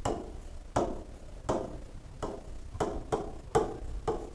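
Pen knocking against the surface of an interactive display board as letters are written by hand, one sharp tap about every three-quarters of a second, roughly one per letter.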